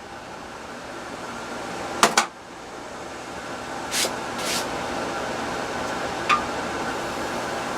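A few sharp metal clinks and knocks from the forged iron holdfast as it is tapped loose and handled, the loudest about two seconds in. Under them runs a steady fan-like hum that slowly grows louder.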